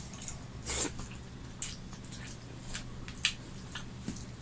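Eating by hand from steel plates: fingers mixing rice and curry, and mouth sounds of eating, heard as a handful of short smacks over a steady low hum. The strongest smack comes about a second in.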